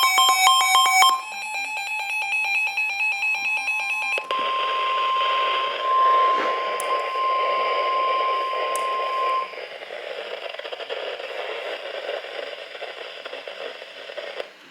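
Emergency alert tones over a weather radio: a rapid patterned electronic beeping, then, about four seconds in, a single steady alert tone over radio static. The tone stops about halfway through, leaving the static hiss.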